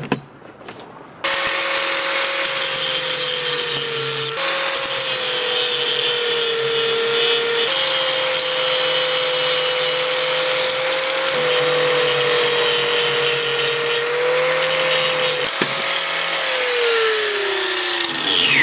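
Angle grinder grinding down fresh welds on a steel clamp. The motor starts about a second in and runs steadily, its pitch wavering slightly as it works the metal, then winds down with a falling pitch near the end.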